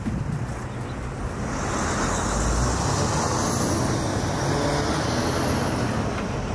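Road traffic noise: a steady rush of passing vehicles that swells about a second and a half in.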